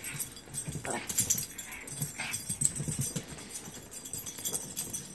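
Two dogs play-fighting, making a few brief whining sounds amid scuffling and scattered clicks.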